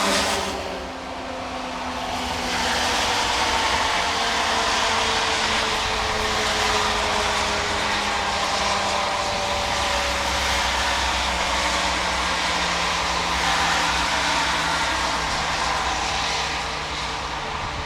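Outdoor tornado warning siren sounding, its tone gliding slowly down in pitch under a steady rushing hiss.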